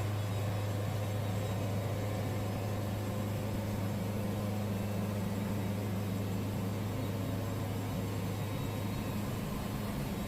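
Wood-Mizer band sawmill running with a steady hum that neither rises nor falls.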